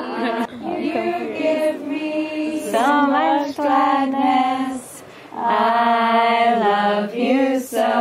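A group of women singing a slow chant together, holding long notes with short breaks between them.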